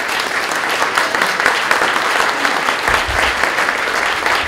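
Audience applauding with steady, dense clapping, with a brief low thud about three seconds in.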